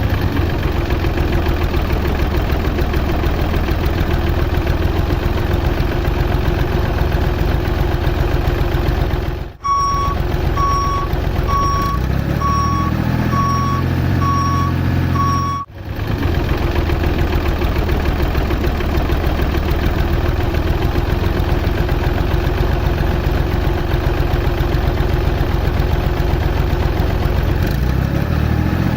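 A small vehicle engine running steadily. In a stretch of about six seconds in the middle, between two abrupt cuts, a reversing alarm beeps about seven times over the engine.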